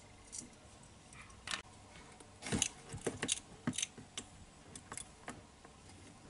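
Irregular sharp clicks and light knocks, bunched together about two and a half to four seconds in, from a leopard gecko moving about a plastic tub while feeding.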